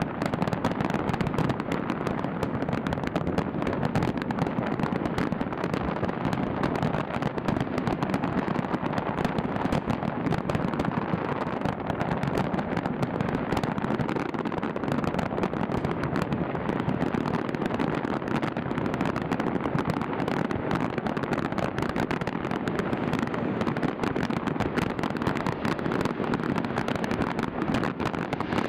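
New Year fireworks display going off in a continuous dense barrage of overlapping bangs and crackles, with no pauses. The audio comes through a live stream and has a dull top end.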